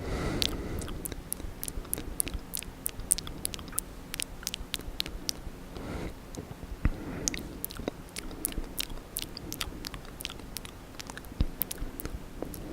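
Close-up wet mouth sounds, ASMR ear licking: rapid, irregular wet clicks and smacks of lips and tongue, described as like slaps in mud mixed with lard frying in a pan.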